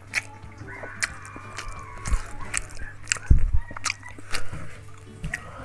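Close-miked mouth chewing a mouthful of saucy steamed momo dumplings: repeated wet smacks and clicks, about one every half second, with a couple of low thumps near the middle.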